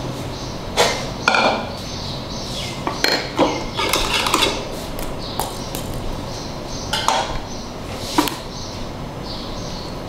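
Kitchen utensils, a spoon and a silicone spatula, clinking and scraping against a glass dish and a ceramic serving dish, with several short, sharp clinks scattered irregularly through.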